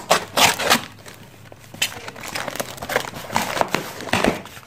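Amazon cardboard mailer wrapped in plastic tape being pulled open by hand: the packaging crinkles and crackles in a string of short, irregular bursts.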